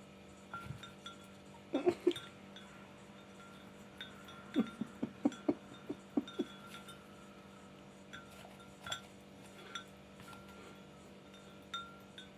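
Light clinks and taps of small hard objects: two near the start, a quick run of about seven a few seconds in, then scattered fainter ticks, over a faint steady hum.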